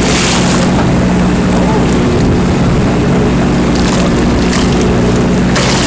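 Fishing boat's engine running steadily with a low drone, under wind and water noise, with short rushes of hiss near the start and near the end.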